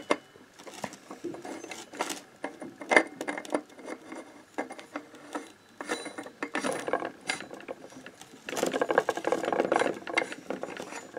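Motobécane AV89 moped variator being screwed back together by hand: the steel fixed half-pulley is turned clockwise on its thread, giving scattered metal clicks and knocks, then a fast run of rattling clicks near the end.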